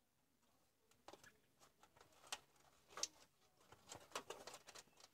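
Faint scattered light clicks and rustling as wires and a hand tool are handled against an open plastic battery-pack housing.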